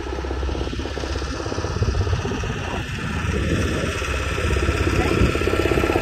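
Wooden passenger boat's engine running steadily with a rapid, even pulse, growing louder in the second half.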